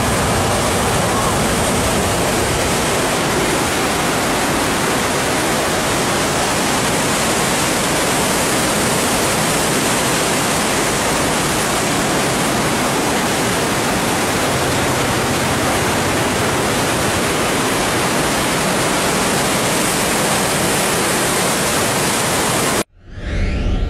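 Floodwater of the swollen Yaque River rushing and churning past a concrete weir, a steady, loud rush of water that stops abruptly about a second before the end.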